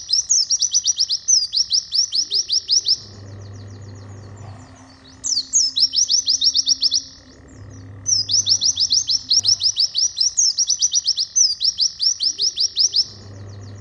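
A white-eye (pleci) singing: long runs of fast, high, sharply falling notes, several a second, broken by two short pauses about three and seven seconds in.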